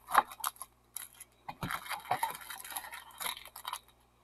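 Foil wrappers of 2012 Bowman baseball card packs crinkling and clicking against each other as they are pulled out of the box by hand and stacked. The sound comes in irregular short rustles and sharp crackles.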